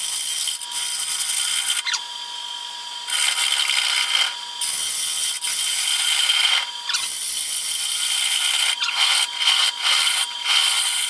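Bowl gouge cutting across the inside of a spinning pecan bowl on a wood lathe, a hissing cut in several passes with short breaks between them. A steady high whine from the running lathe sits underneath.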